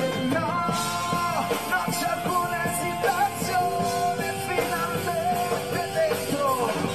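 Live pop-rock band playing: a male lead vocal holds and bends long notes over electric guitars and a drum kit.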